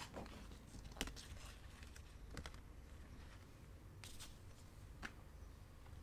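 Faint sounds of cross stitching: the needle poking through the 14-count fabric held in a hoop and the cotton thread drawn through it. They come as a few soft, scattered clicks and rustles, the sharpest about a second in.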